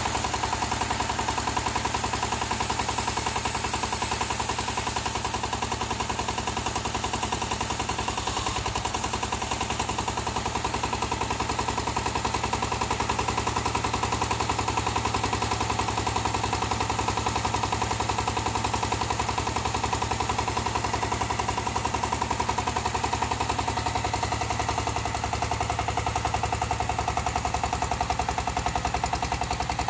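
Small diesel engine of a mini crawler tractor running steadily, with a rapid, even chugging beat, while its hydraulic backhoe arm is being worked.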